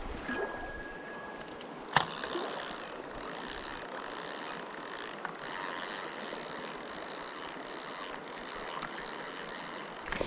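Mountain stream water rushing steadily, with one sharp click about two seconds in.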